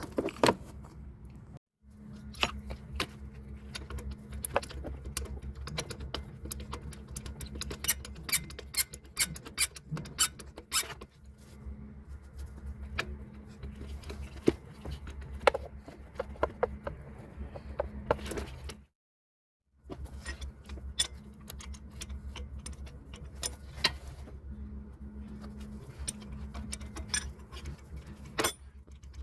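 Metal hand tools clicking and clinking against metal while the old starter motor is unbolted from a car, with a run of quick clicks like a ratchet wrench turning, over a steady low hum. The sound drops out briefly twice.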